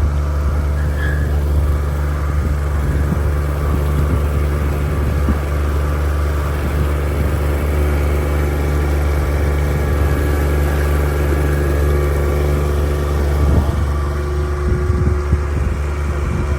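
Cruise ship's engine droning steadily, a deep even hum with several overtones running at a constant speed.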